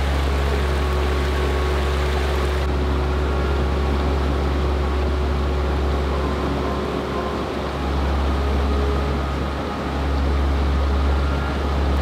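Steady rushing of a mountain stream, with a deep, even rumble underneath that dips briefly twice.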